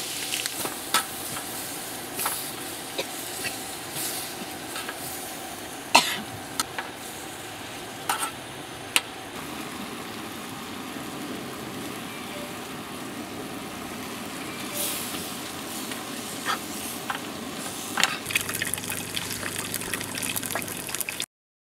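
Squid and shrimp stir-fry sizzling in a frying pan on a portable gas stove, with sharp clinks of a metal spatula against the pan. Near the end an egg sizzles as it fries, and the sound cuts off abruptly.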